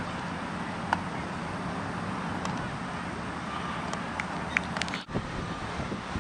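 Steady outdoor background noise on the camera microphone, with a low hum and a few faint clicks; it drops out briefly about five seconds in.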